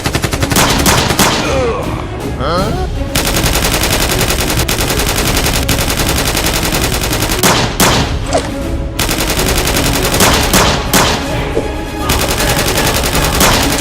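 Rapid automatic gunfire effects in long bursts, broken by short pauses about halfway through and again near the end, over background music.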